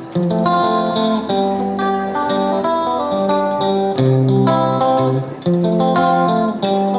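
Background music: plucked guitar playing chords and melody notes, the chords changing every second or so.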